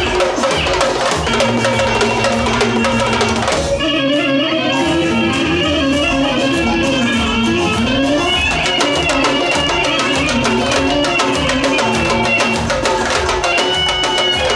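Live dance music: a clarinet playing the melody over fast, steady drumming, the drums dropping out for about a second some four seconds in before coming back.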